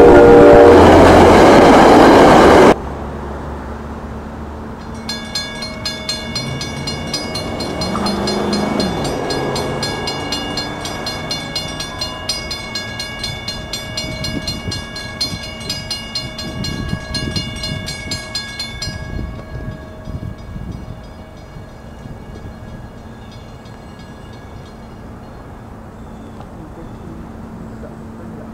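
NJ Transit commuter train passing close with its horn sounding, cutting off suddenly about three seconds in. Then a level crossing's warning bells ring in a rapid steady pattern for about fourteen seconds while the gates lower, and stop.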